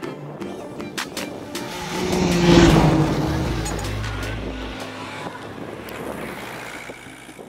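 A motor vehicle drives past close by on a gravel road, swelling to its loudest about two and a half seconds in and then slowly fading away.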